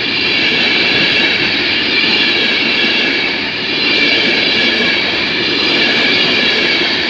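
Mark 4 passenger coaches of a Class 91 InterCity 225 set passing close by, a loud steady rumble and rattle of wheels on the track with a steady high-pitched whine over it.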